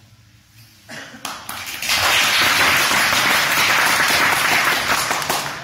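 Audience applauding: a few scattered claps about a second in, swelling into full, steady clapping that tails off near the end.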